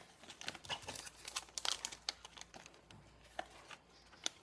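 Foil toy blind-bag packets and paper crinkling and rustling as they are handled and torn open, in many short, irregular crackles.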